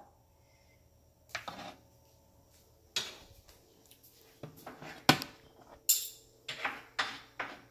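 Kitchen dishes being handled on a counter: a string of separate clinks and knocks, coming closer together in the second half.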